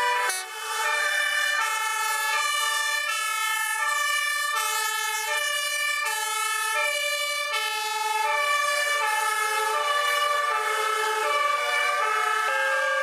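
Several fire-engine two-tone sirens sound at once, out of step with one another. Each switches between a high and a low note about every three-quarters of a second.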